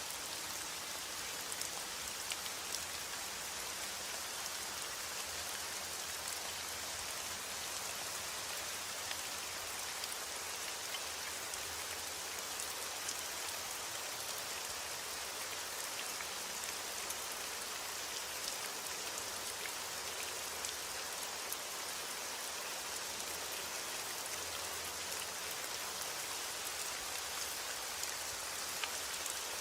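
Steady rain falling and pattering on a surface, an even hiss with many small, sharp drop ticks scattered through it.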